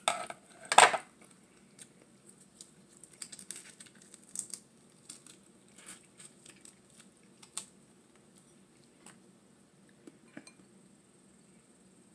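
A sharp clatter under a second in, then scattered faint clicks and crackles as a cooked shrimp is peeled and picked apart by hand.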